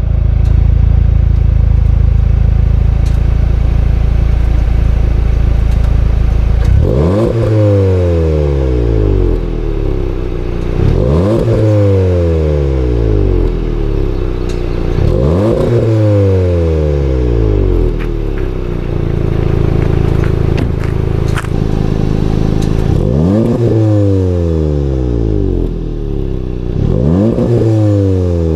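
VW Golf R's 2.0-litre turbocharged four-cylinder exhaust, its resonator deleted, idling steadily and then blipped five times, each rev rising and falling in pitch within a couple of seconds. The later revs are in normal mode with the exhaust valves closed.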